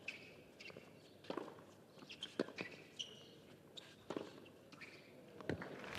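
A tennis rally on a hard court: sharp pops of racket strings hitting the ball and ball bounces, a second or so apart, with short high squeaks of tennis shoes on the court between the shots.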